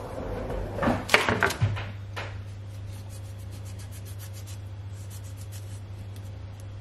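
Knife slicing a lemon on a cutting board: a few sharp cuts about a second in, then faint light ticks over a steady low hum.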